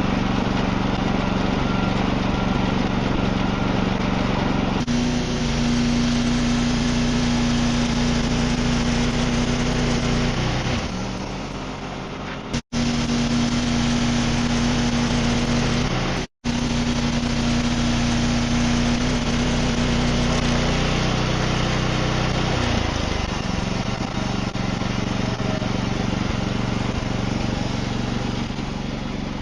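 Wood-Mizer portable band sawmill running under its engine, a steady mechanical drone during milling of a black walnut log. The engine note steps up about five seconds in and settles lower in the last quarter. The sound cuts out twice for a split second.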